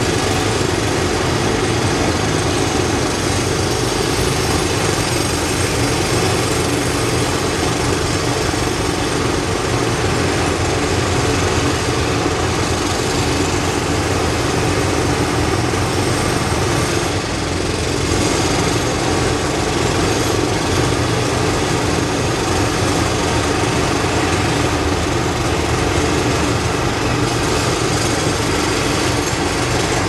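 Several jackhammers hammering at once in a continuous loud din, with a brief dip in level about 17 seconds in.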